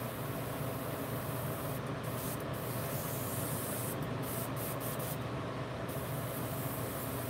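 Airbrush spraying paint in a steady hiss, laying down a first coat. The hiss cuts out briefly several times in the middle as the trigger is let off. A steady low hum runs underneath.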